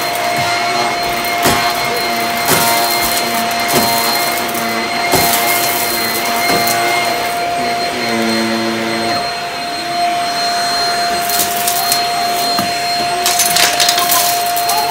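Bissell vacuum cleaner running with a steady motor whine, crackling as it sucks up debris along the edge of a rug. A denser run of crackles comes near the end, as the hose wand works the rug's edge.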